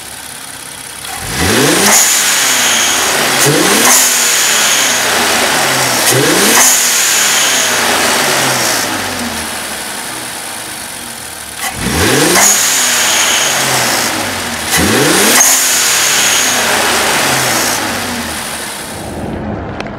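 Twin-turbo Infiniti V6 free-revved in five quick blips, each climbing in pitch and followed by the hissing whoosh of its HKS blow-off valves venting boost as the throttle closes.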